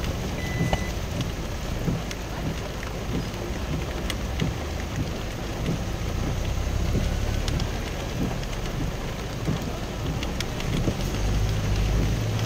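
Heavy rain pattering on a vehicle's windshield and body, heard from inside the cab as a steady hiss with many small drop clicks. A low engine rumble underneath grows louder near the end.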